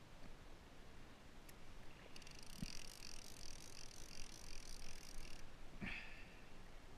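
A fishing reel clicking rapidly for about three seconds, starting about two seconds in, as line runs through it during the fight with a blue shark. Two soft knocks come near the middle and near the end, over a faint steady hiss of wind and sea.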